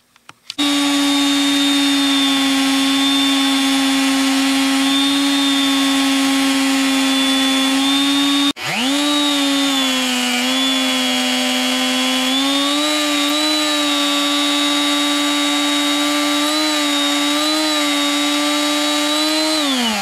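Electric magnetic-base drill press running and drilling into cast iron, a steady motor hum. About a third of the way through, it cuts out abruptly and spins straight back up. The pitch then sags and wavers as the bit takes load, and the motor winds down at the end.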